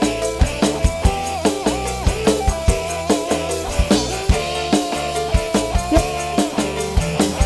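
Live dangdut band playing an instrumental passage over a steady drum beat, about two hits a second, with keyboard, electric guitar and a melody line on top.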